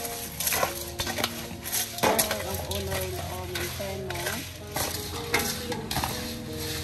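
Live eels thrashing in coarse salt in a large aluminium basin, held down under an upturned metal bowl: a constant wet, hissing slither with many quick knocks and scrapes of the bowl against the basin.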